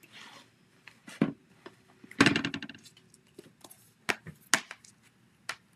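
Clear stamp on an acrylic block tapping and clicking against the ink pad and work surface. A quick rattling run of taps comes about two seconds in, with single sharp clicks before and after.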